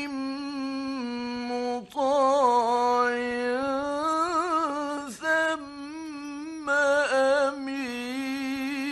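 A male Quran reciter chants in the melodic mujawwad style. He draws out 'muṭāʿ' and the following words in long held notes with wavering melismatic ornaments, pausing briefly for breath between phrases. The recording is an old mid-1960s radio broadcast.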